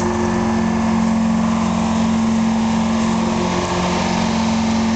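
Engine idling steadily, a constant low drone with no change in speed.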